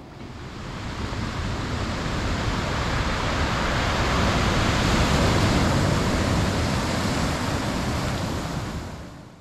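Steady rushing noise, even and without any tone or rhythm, that swells up over the first couple of seconds and fades out just before the end.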